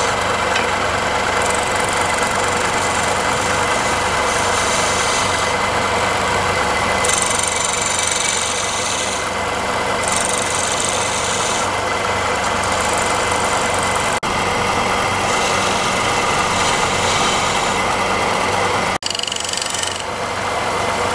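A wood lathe running with a steady machine hum while a hand-held chisel cuts the spinning wood. The rough cutting hiss comes and goes as the tool bites and eases off.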